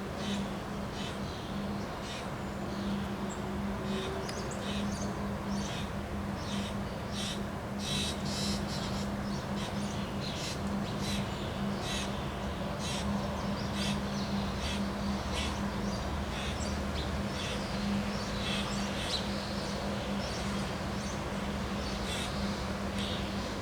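Birds calling in many short, sharp chirps, scattered irregularly throughout, over a steady rushing noise and a constant low hum.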